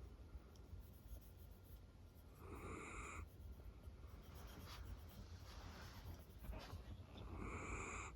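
Miniature dachshund snoring in its sleep: two short snoring breaths about five seconds apart, each under a second long, faint.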